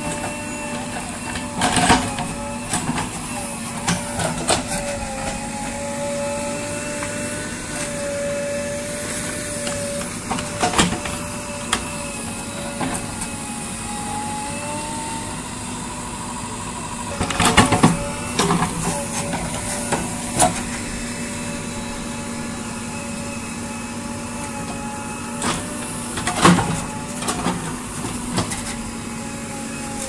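JCB 3DX backhoe loader's diesel engine running under load with a steady, slightly wavering whine, while the backhoe digs. Sharp clanks and knocks from the arm and bucket come several times, loudest at about two seconds, around eighteen seconds and around twenty-six seconds.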